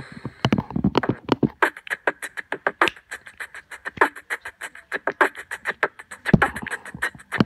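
A person beatboxing: a fast, dense run of mouth-made clicks and snare-like hits, several a second.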